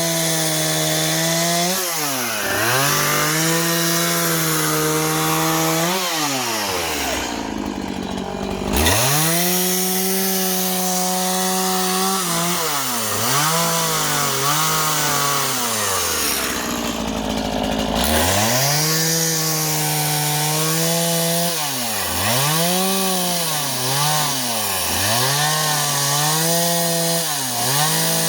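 Two-stroke chainsaw running at high revs, cutting wood with a freshly sharpened chain. The engine note repeatedly dips and recovers in quick swoops as the throttle is eased and opened again, and it drops to idle twice for a second or two before revving back up.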